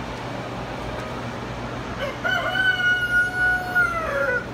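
A rooster crowing once: a single long call that starts about two seconds in, holds its pitch and drops at the end, over a steady background hum.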